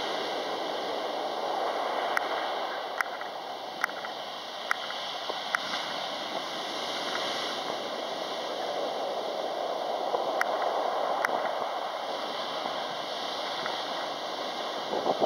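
Surf breaking and washing up a pebble beach: a steady rush that swells and eases as the waves come in. Short runs of sharp clicks about a second apart cut through it.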